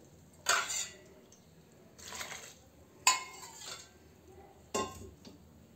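Metal cup and cooking pots clattering: four short metallic clinks and knocks spaced a second or so apart, as water is scooped by the cupful for the pressure cooker.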